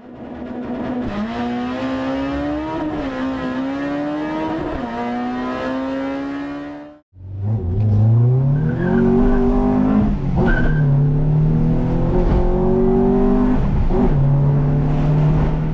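Honda Civic's B20 VTEC engine pulling hard under acceleration, its pitch climbing steadily. It cuts out abruptly about seven seconds in, then comes back with a quick rise in revs before holding at a high, fairly steady pitch.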